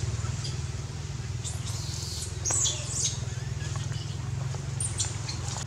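Macaques in the tree giving short high-pitched squeaks in two bursts, one about a second and a half in and one near the end, over a steady low hum.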